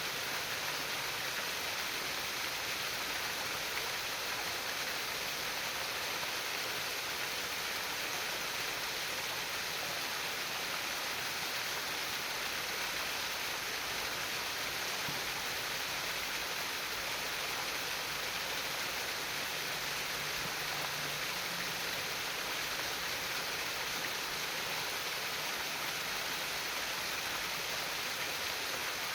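Stream water babbling and trickling over rocks in a steady, unbroken rush.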